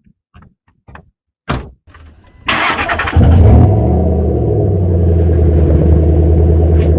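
A few light clicks and a sharp knock, then the Ford F-150's starter cranks briefly and the engine catches, settling into a steady idle.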